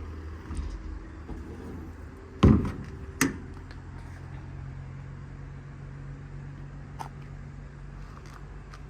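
A steel service-body compartment door swung shut with a heavy thud about two and a half seconds in, then a sharp latch click under a second later. A low steady hum follows.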